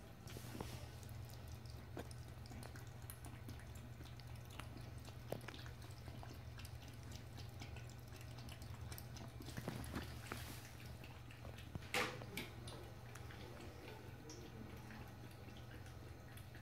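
Cat lapping water from a toilet bowl: faint, irregular small drips and splashes, a little louder about ten and twelve seconds in.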